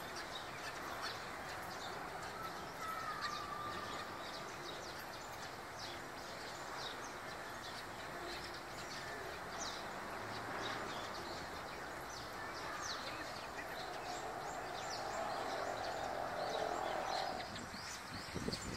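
Eurasian tree sparrows chirping, many short high chirps scattered throughout over steady background noise. A low hum swells and fades in the last few seconds.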